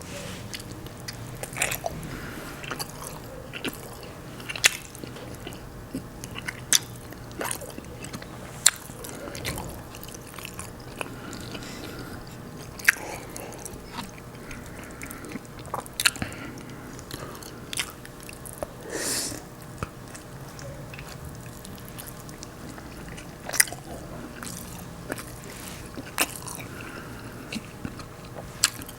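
Close-miked chewing of a consomé-dipped beef birria taco: steady wet chewing and mouth noises punctuated by sharp smacking clicks every second or two, with one longer breathy sound about two-thirds of the way in.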